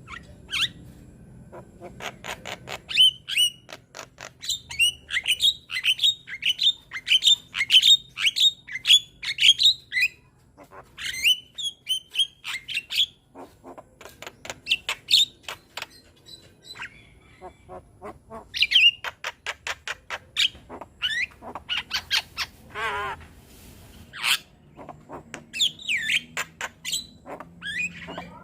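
Young Javan myna (jalak kebo) singing a fast, varied song: runs of sharp clicks and a string of repeated down-slurred whistles about two a second, with a short buzzy rattle late on.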